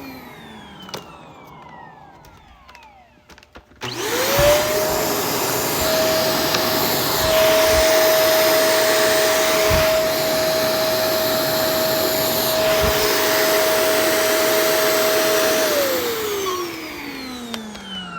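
Vacuum cleaner motor winding down at the start, then switched on again about four seconds in, its whine rising quickly to a steady pitch and running for about twelve seconds with a few low thumps. Near the end it is switched off and the whine falls as the motor spins down.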